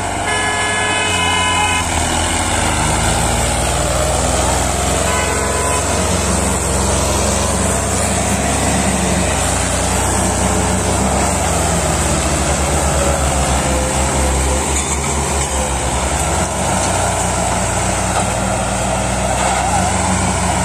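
Diesel engines of a Mahindra Arjun 605 and a New Holland tractor running hard under load as they pull a heavily loaded sugarcane trolley together. A horn toots briefly near the start and again about five seconds in.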